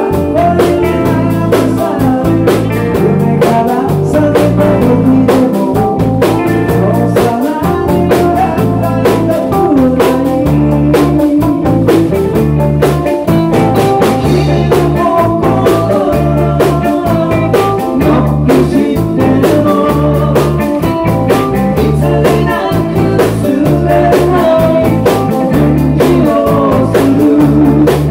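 A live rock band playing a song: a Rickenbacker electric guitar, a Stratocaster-style electric guitar, electric bass and a drum kit, with a lead vocal and backing harmony vocals. The bass and drums keep a steady, repeating beat.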